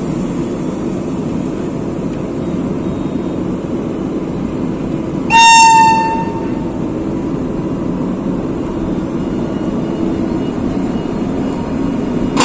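A locomotive horn sounds one short blast about five seconds in. Under it runs the steady hum of a standing train.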